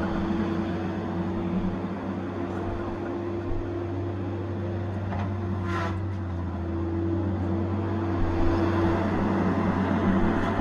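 Tigercat 870C feller buncher's diesel engine running steadily at work. A brief sharp crack comes about six seconds in.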